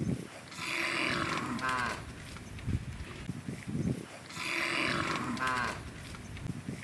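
Cattle mooing, the same stretch of calls repeating about every three and a half to four seconds, twice in a row.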